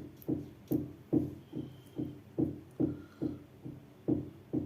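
Kitchen knife cutting a carrot against a cutting board: even knocks, about two to three a second.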